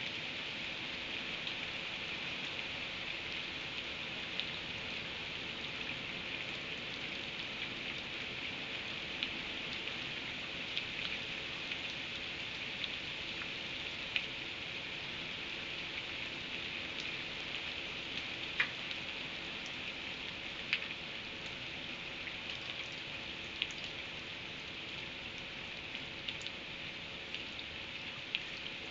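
Steady rain hiss, with scattered sharp ticks of drops striking a surface every second or two.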